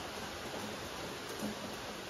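Steady rain falling: an even hiss made of many small raindrops, with one slightly louder drop about a second and a half in.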